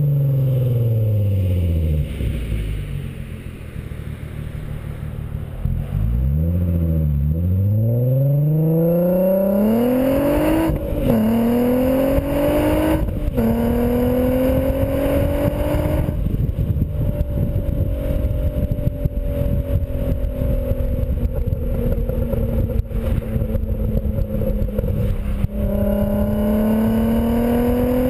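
2004 VW R32's 3.2-litre VR6 engine heard through a BlueFlame non-resonated cat-back exhaust. The revs fall away and run quieter for a few seconds, then climb hard with two quick breaks in pitch, about 11 and 13 seconds in, like gear changes, before settling into a steady cruise. Wind buffets the microphone.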